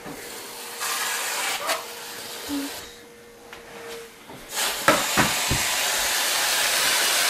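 Aerosol whipped-cream can spraying with a steady hiss: a short burst about a second in, then a longer, louder burst from about four and a half seconds on, with a few soft knocks as it starts.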